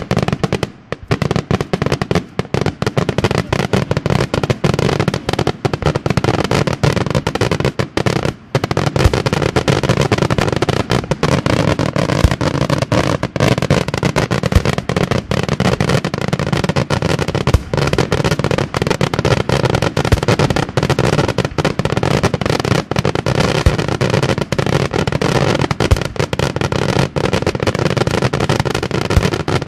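Senatore Fireworks' daytime aerial fireworks going off in a dense, unbroken barrage of bangs and crackling over a low rumble, many reports a second. There are brief dips about one second and eight seconds in.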